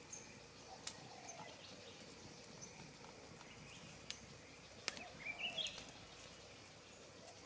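Small wood campfire crackling faintly, with a few sharp pops, and a short rising chirp about five seconds in.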